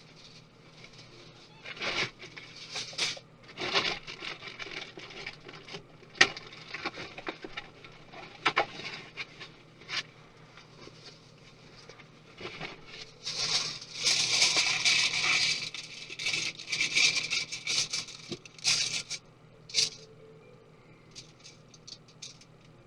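Hands and small tools working on the parts of a 2017 13-inch MacBook Pro during disassembly: scattered clicks, taps and light scrapes, with a denser stretch of scraping and rustling about halfway through.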